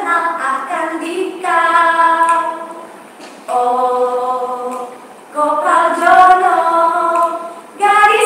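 Women singing unaccompanied, in short phrases of held notes with brief pauses between them.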